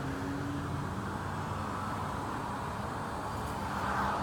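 Steady outdoor background noise with a low hum.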